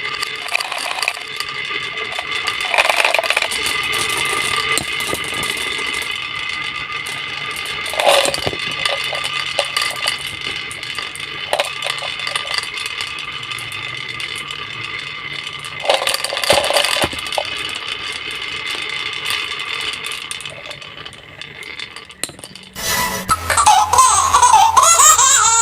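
Marbles rolling and clattering along a toy marble run, with steady ringing tones, scattered sharp clicks and a faint low hum underneath. Near the end the sound changes to a high, warbling sound.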